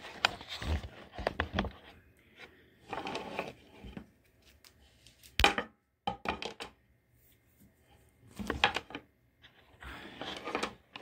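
Handling noises as multimeter test probes are unpacked: irregular bursts of rustling and light knocks on a wooden bench, with one sharp knock about five and a half seconds in.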